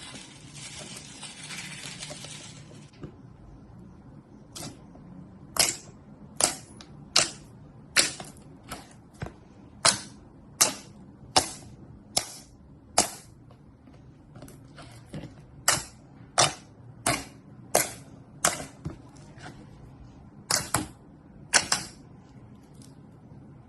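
Slime being pressed and worked by hand. It crackles for the first few seconds, then gives a run of sharp air-pocket pops or clicks, about one every second or less, uneven in spacing.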